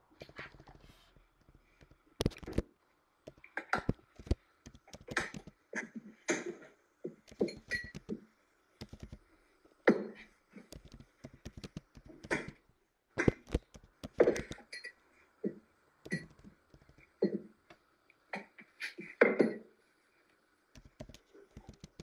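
Irregular soft thumps and knocks from hands pressing and patting sweet potato roti dough on a floured pastry mat.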